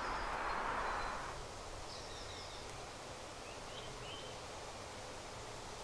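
Outdoor ambience with a few short, high bird chirps. A soft rustling hiss fades out about a second and a half in.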